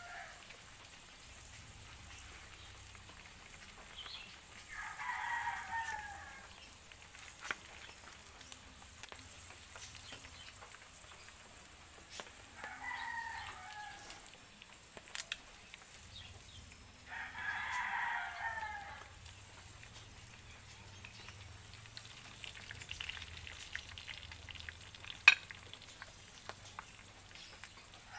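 A rooster crowing three times, each crow one and a half to two seconds long, over a faint sizzle of frying food. Scattered sharp clicks, one of them loud about 25 seconds in.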